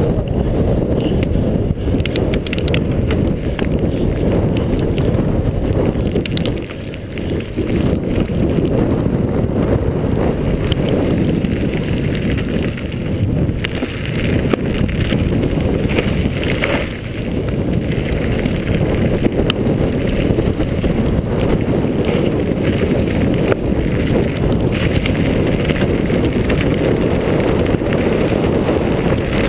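Wind buffeting the camera's microphone while a mountain bike descends a dirt trail at speed, with a steady low rumble from the tyres on the track and scattered short rattles and clicks from the bike.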